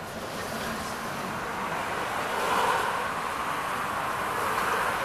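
Škoda ForCity Smart Artic tram running along the track, heard from inside the passenger cabin: a steady rolling and running noise that swells a little about halfway through.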